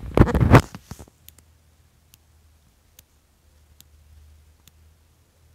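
Mechanical replacement aortic heart valve clicking each time it closes: a faint sharp tick about every 0.8 seconds, once per heartbeat, heard through the chest with the phone pressed against it. It begins after about a second of loud rubbing as the phone is moved onto the blouse.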